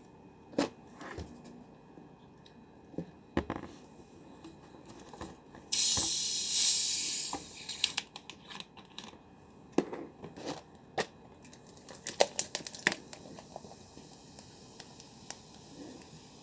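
Carbonated cola being opened: handling clicks and taps, then a sudden hiss of gas escaping about six seconds in that lasts about two seconds and fades, followed by more sharp clicks and taps.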